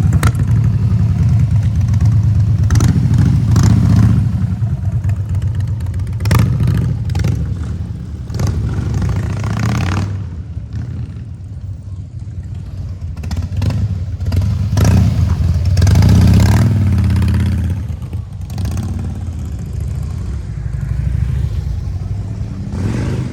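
Harley-Davidson V-twin motorcycle engine running, its exhaust note swelling and bending in pitch a few times as it is revved, with scattered sharp clicks.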